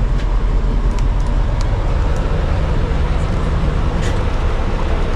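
Steady low engine rumble of an ice cream van running while parked, with a few faint clicks.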